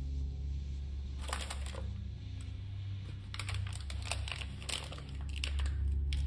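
Rubber-gloved hands rummaging through plastic packaging in a container: irregular crinkling and rustling, one short spell about a second in and a longer one from about three seconds in, over a steady low hum.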